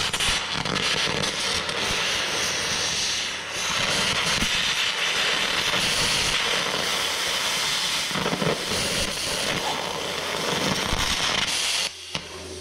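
Small plasma cutter arc hissing and crackling as it cuts steel plate, starting abruptly and cutting off about twelve seconds in. The owner says it is barely biting, just tickling the 10 mm steel.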